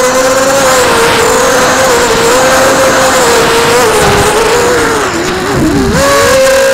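FPV quadcopter's brushless motors and propellers whining, heard from the onboard camera over a rush of air. The pitch holds fairly steady, sags and wobbles about five seconds in, then jumps back up as the throttle is opened again.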